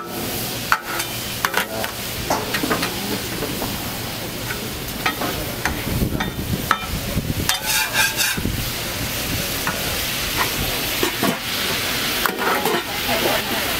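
Steak sizzling on a hot steel flat-top griddle, with a metal spatula repeatedly clicking and scraping against the plate as the meat is chopped and turned.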